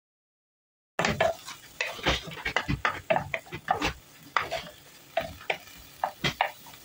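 Wooden spoon stirring diced onion frying in oil in a frying pan: irregular scrapes and knocks of the spoon against the pan over a light sizzle. It starts suddenly about a second in.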